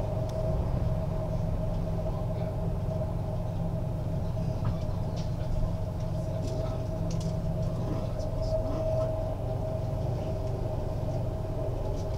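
Electric passenger train running at speed, heard from inside the carriage: a steady low rumble from the wheels and track, with a constant mid-pitched hum and faint light rattles.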